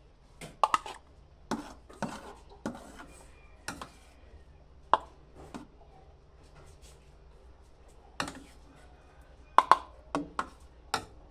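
A spoon knocking and scraping against a plastic food container while scooping pudding. The sound is a series of sharp clicks and taps at uneven intervals, with a loud double knock near the end.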